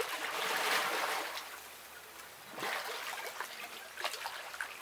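Water splashing and sloshing as a person crouches down to the shoulders in icy lake water and moves about in it; a loud splash in the first second or so, then a second burst of sloshing about two and a half seconds in.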